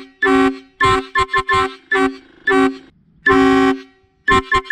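Korean Kiwon air horn sounding a series of about ten honks, long blasts mixed with runs of quick short toots, two notes sounding together in each.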